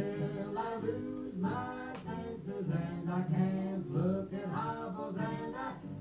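Music: singing over a plucked guitar accompaniment.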